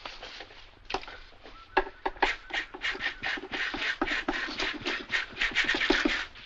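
Straight razor scraping over the skin of a plucked turkey: one stroke about a second in, then a rapid run of short scraping strokes, about four a second, from about two seconds in.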